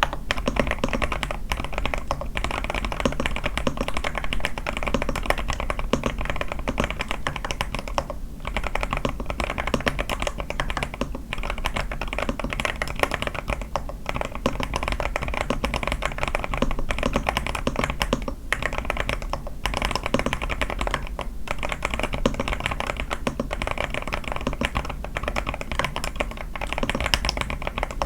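Continuous fast typing on an A81 mechanical keyboard with lubed Sky switches, a tape mod and lubed stabilisers: a dense run of keystroke clacks with a few brief pauses.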